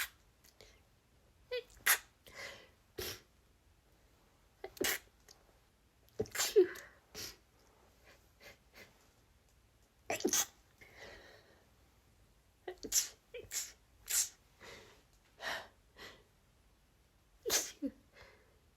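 A woman's stifled sneezes: many short, sharp, held-back sneezes at irregular intervals of a second or two, some coming in quick pairs.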